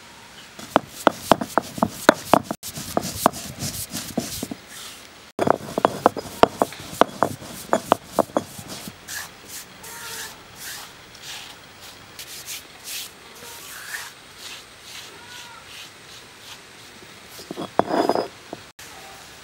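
Fennel seeds being crushed with a stone roller on a flat grinding stone. Two runs of quick crackling, grinding strokes give way to softer rubbing as the seeds break down, and a louder scrape comes near the end.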